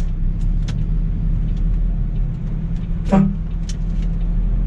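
MAN truck's diesel engine running, heard inside the cab as the truck pulls away and turns, with scattered light clicks and rattles and one brief louder noise about three seconds in.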